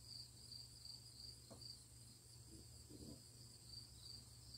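Faint background insect chorus from crickets or katydids: a steady high-pitched chirping that pulses about twice a second.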